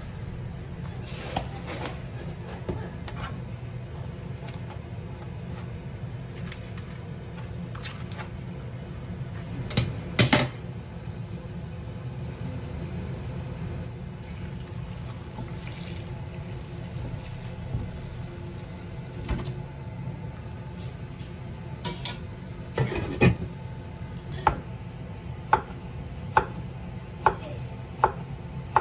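Kitchen cookware and utensils clattering and knocking, with one loud clatter about ten seconds in. Near the end, a knife slices zucchini on a wooden cutting board in steady strokes, about one a second. A steady low hum runs underneath.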